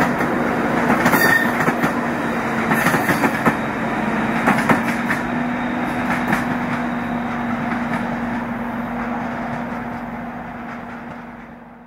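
Deltic diesel locomotive and its coaches going past, the Napier Deltic engine holding a steady droning note over the rumble and clatter of carriage wheels on the rails. The sound fades away over the last few seconds as the train draws off.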